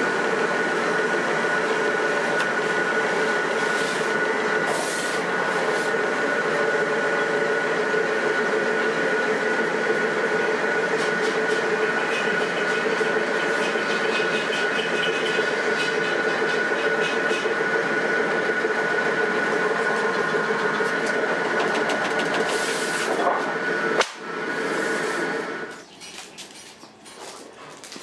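Machinery running with a steady drone and two constant tones, with a faint rattle over it. It cuts off abruptly about 24 seconds in, followed by a short burst of similar noise and then much quieter room sound.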